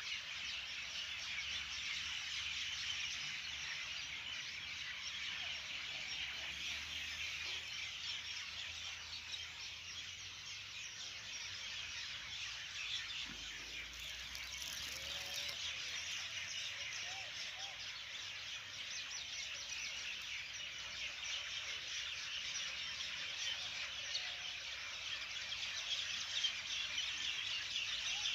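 A steady, dense, high-pitched outdoor chorus of many small chirping animals, with a few faint lower calls partway through.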